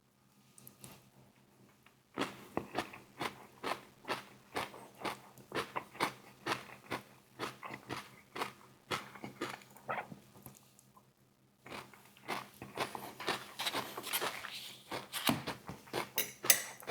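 Close-up chewing of crispy breaded KFC fried chicken wings: quick crunching chews, about three a second, starting about two seconds in, with a short pause of about a second before the chewing resumes.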